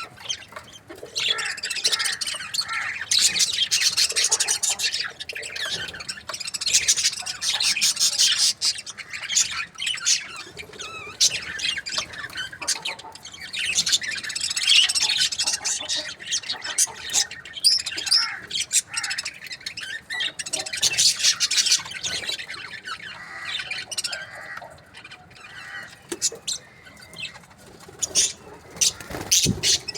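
A group of budgerigars chirping and chattering continuously, with many quick, overlapping high-pitched squawks and warbles.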